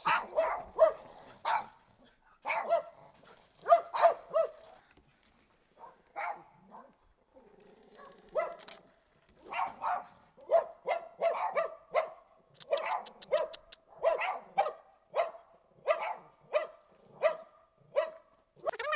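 A small puppy barking in a long string of sharp, high yaps, about two a second, with a lull of a few seconds about a quarter of the way in.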